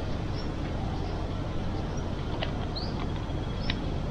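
Steady low wind rumble on the microphone, with faint, short high bird chirps now and then and a couple of light clicks.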